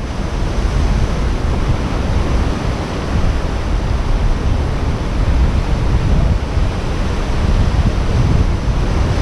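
Strong wind buffeting the microphone, a loud, steady rumbling roar, with surf washing on the shore beneath it.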